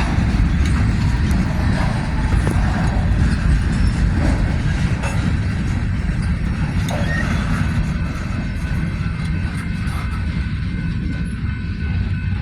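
Freight cars of a slow-moving manifest train rolling past, a steady low rumble with scattered wheel clicks. Faint thin high tones join about halfway through.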